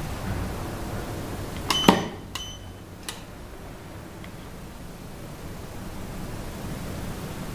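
A Techwin TCW-605S fusion splicer gives two short electronic beeps about two seconds in, with a sharp click from its lid or fibre clamps between them and another click a moment later. A steady hiss runs underneath.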